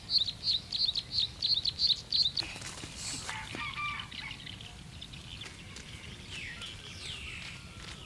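A small bird chirping fast, about four short high chirps a second, stopping about two and a half seconds in; fainter scattered calls and rustling follow.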